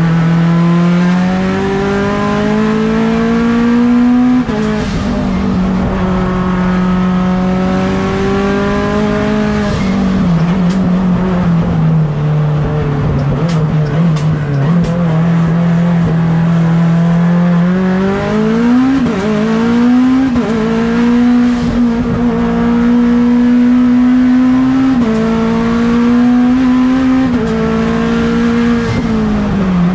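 Mitsubishi Lancer Evolution X race car's turbocharged 4B11 four-cylinder engine pulling hard, heard onboard. Its pitch climbs in each gear and drops again at the gear changes, several times over.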